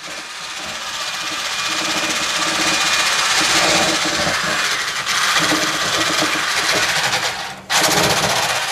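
Corded electric hand blender with a whisk attachment running steadily, beating egg whites in a metal bowl; the sound builds over the first couple of seconds and breaks off briefly near the end.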